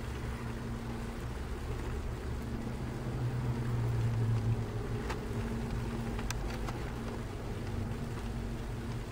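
Steady low hum of a running engine, a little louder for a moment about four seconds in, with a few faint clicks about five to six seconds in.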